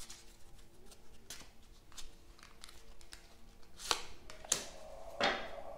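Tarot cards handled and laid on a table: several short, sharp flicks and taps of card on card and card on tabletop, spaced unevenly.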